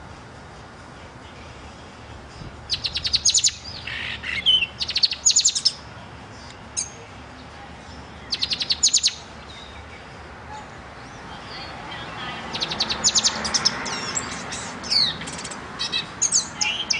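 Caged black-and-white pet songbird singing in several bursts: fast, high trills of rapidly repeated notes mixed with lower whistled slurs, with pauses of a second or two between phrases.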